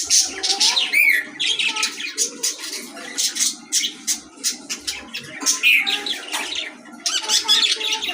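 Budgerigars chattering: a rapid, unbroken stream of short chirps and squawks.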